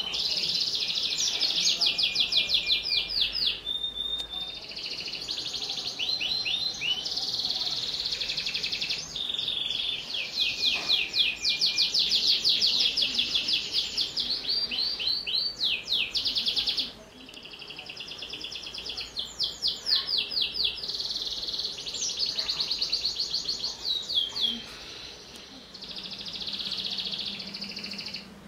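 Domestic canary in full, nonstop song: fast trills of rapidly repeated sweeping notes, switching to a new phrase every second or two, with only a brief break partway through.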